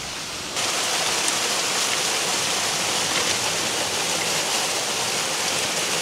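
Waterfall rushing: a steady noise of falling water that jumps up in level about half a second in and then holds even.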